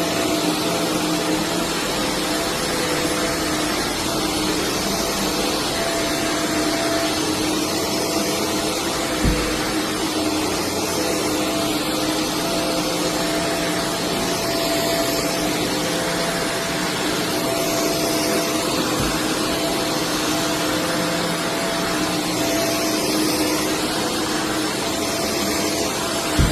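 Vacuum cleaner running steadily, a constant rushing noise over a motor hum, with two brief low thumps about a third and two-thirds of the way through.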